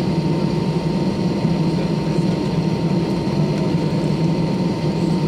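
Cabin noise of an Airbus A320-214 taxiing slowly on the ground, its CFM56 engines at idle: a steady, even hum with a thin steady tone above it.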